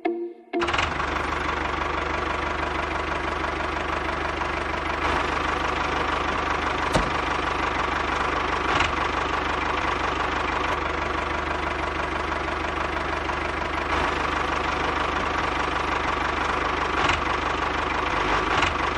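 Tractor engine running steadily with a fast, even knock.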